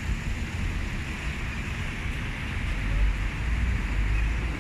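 Street background noise of passing road traffic, with wind rumbling on the phone's microphone. The rumble grows stronger about three seconds in.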